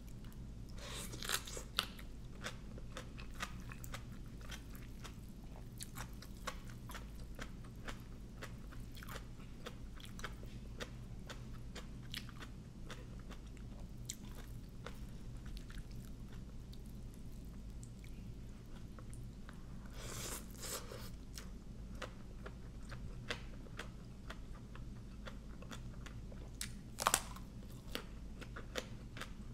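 Close-up chewing and crunching of crisp raw vegetables and papaya salad, with many small wet mouth clicks and louder crunchy bites about a second in, around two-thirds of the way through and near the end.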